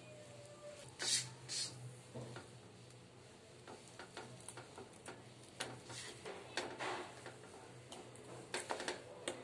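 Silicone spatula scraping, folding and pressing sticky glutinous rice dough against a non-stick wok, giving scattered soft clicks and scrapes in short clusters. A steady low hum runs underneath.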